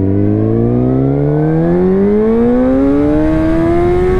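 Suzuki GSX-R1000's inline-four engine accelerating hard in one gear, its note rising steadily. It is heard muffled through the GoPro's housing, with no external mic attached.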